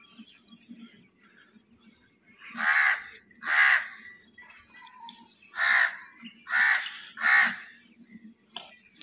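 A crow cawing five times, loud harsh calls of about half a second each, two and then three. Underneath runs a faint irregular patter from buffaloes being hand-milked into steel pails.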